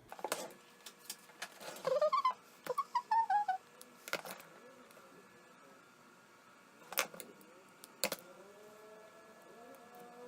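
Scattered small clicks and taps from handling phone parts and tools, with a quick run of short squeaks falling in pitch about two seconds in.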